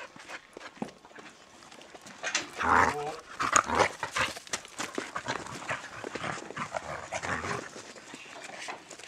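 An animal's calls: a loud pitched call about two seconds in, followed by shorter ones, and another run near seven seconds, among scattered short clicks and knocks.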